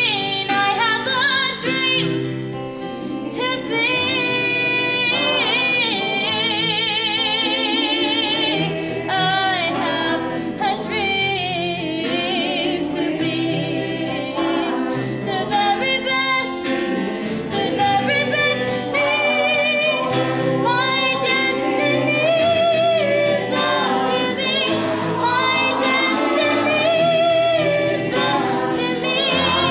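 Live choral music: a girl's solo voice singing with vibrato over a mixed choir of men and women, accompanied by piano and acoustic guitar.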